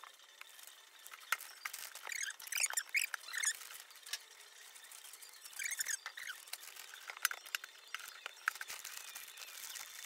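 Quiet rustling and handling of gift-wrapping paper as a bread bin is wrapped, with scattered light clicks and a few short squeaks.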